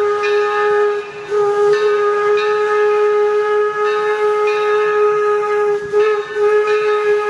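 Steam locomotive whistle blowing one long, steady blast, with a brief dip and waver in pitch about a second in and again about six seconds in.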